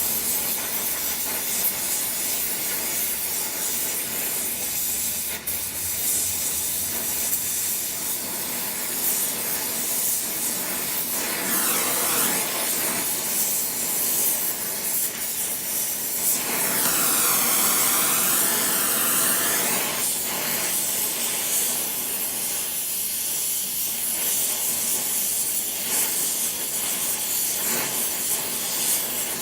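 Brazing torch flame hissing steadily as braze is laid into a vise's iron jaw, growing louder for a few seconds past the middle.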